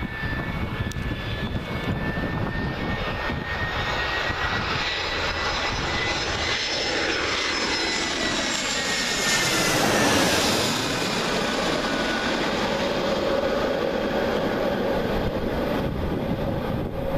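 Airbus A320-214's CFM56 turbofan jet engines on landing approach passing low overhead: a steady roar with high whine tones that drop in pitch as it goes by. It is loudest about ten seconds in, then settles into a receding roar.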